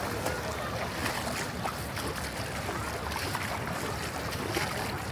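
Ocean surf washing in at the shore, with wind buffeting the microphone in a steady low rumble. Faint distant voices are mixed in.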